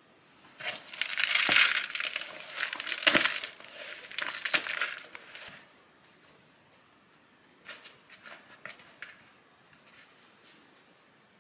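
Hands kneading sticky raisin dough with chopped almonds in a plastic mixing bowl: squishing, scraping and crinkly rustling, loudest for the first five seconds or so, then a few soft scuffs.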